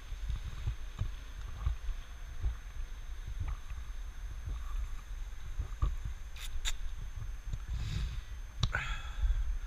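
Wind rumbling on a helmet-mounted action camera's microphone, with scattered light clicks and knocks from a plastic water bottle being handled on a bicycle. Two sharp clicks come about six and a half seconds in, and another near the end.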